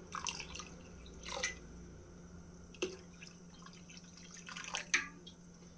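Water poured in a thin stream from a steel jug into a pan of liquid kadhi batter, heard as a handful of short, faint plops and splashes.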